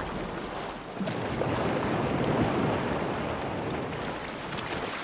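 Seawater rushing and splashing as a great white shark breaches and falls back into the sea, a dense steady rush that grows louder about a second in.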